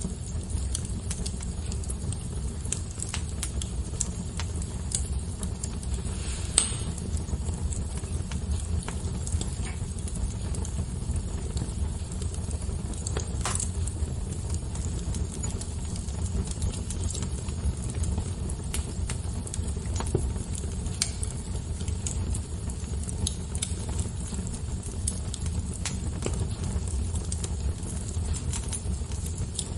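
Fire crackling: a steady low rumble with scattered pops and snaps, and two louder pops about six and a half and thirteen and a half seconds in.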